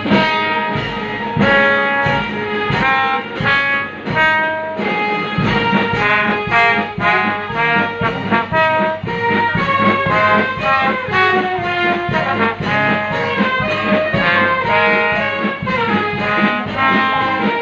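Brass band playing a melody over a steady drum beat.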